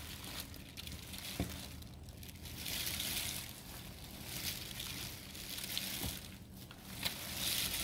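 Soft squirting and crinkling as Camel fluid acrylic paint is squeezed from a plastic nozzle bottle into paper cups, with a few light clicks.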